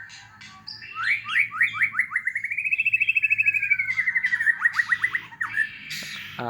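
White-rumped shama (murai batu) singing in fighting mode: a few short chirps, then a long, fast trill of rapidly repeated notes that rises in pitch, holds steady and sags slightly before stopping shortly before the end.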